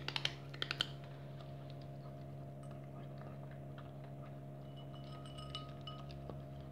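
A cat crunching dry kibble from a bowl: a quick run of crisp crunches in the first second, then fainter chewing ticks, over a steady low hum.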